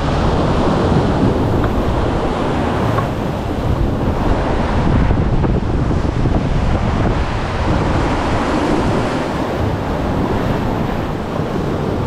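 Steady rushing, churning whitewater of a river rapids ride around a circular raft boat, with wind buffeting the microphone.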